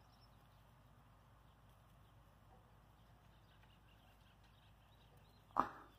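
Faint outdoor background close to silence, broken once near the end by a single short, sharp sound that fades quickly.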